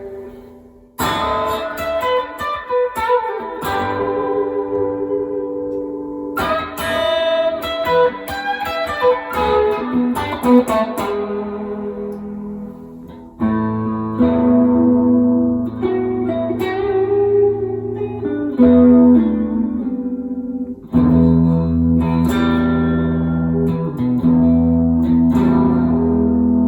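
Gibson Les Paul Deluxe electric guitar played through an amplifier. It starts with picked single notes and arpeggios, then from about halfway moves to louder ringing chords with a strong low end, one pause just before the last third.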